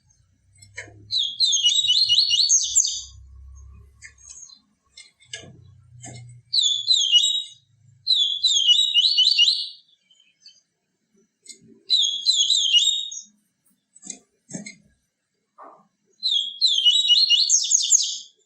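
Papa-capim seedeater singing its 'tui tui viviti' song: five high, rapid twittering phrases of a second or two each, separated by short pauses. A faint low rumble sits under the first few seconds.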